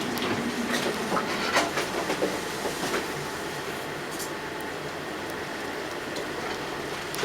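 Steady rushing noise with irregular knocks and rattles, several close together in the first three seconds, then mostly the steady rush: a vessel's fittings and structure rattling in a storm at sea.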